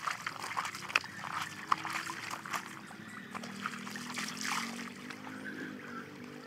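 Water splashing and trickling as a wet garment is scrubbed by hand, lifted dripping and dipped back into a shallow stream, in a run of short, irregular splashes.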